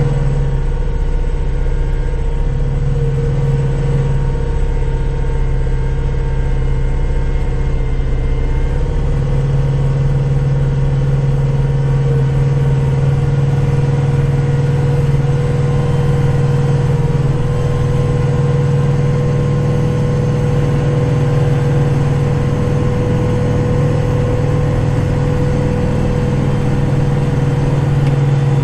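Kubota tractor's diesel engine running steadily under load with the PTO-driven snowblower engaged: a constant low drone with a steady higher whine over it.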